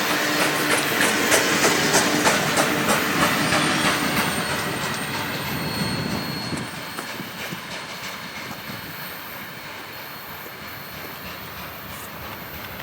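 Cars of a long freight train rolling by, steel wheels clicking over rail joints in a quick irregular rhythm with a thin, faint wheel squeal. The sound fades steadily as the train moves off, and the clicks thin out about halfway through.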